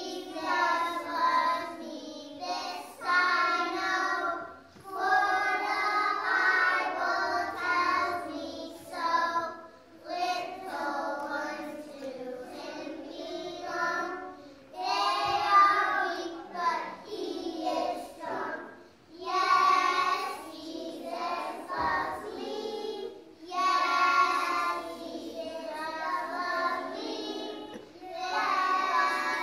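A group of young children singing a song together in unison, phrase by phrase with short breaks between lines.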